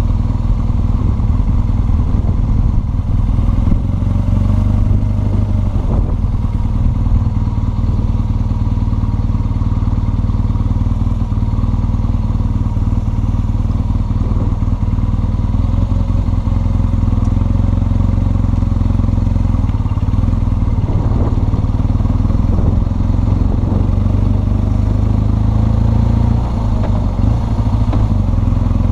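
BMW R1200 GS Adventure's flat-twin boxer engine running steadily while the motorcycle is ridden, heard as a continuous low rumble.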